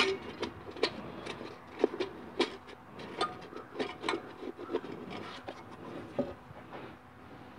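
Parts clinking and clicking inside an aluminium 4L60E automatic transmission case as a gloved hand works at them: irregular sharp metal-on-metal clicks, two or three a second, thinning out near the end.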